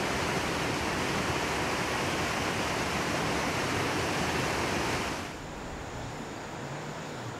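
Rushing river water over rapids, a steady loud rush that drops to a quieter steady hiss about five seconds in.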